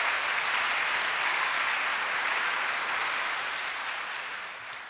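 Audience applauding with steady clapping that fades down near the end.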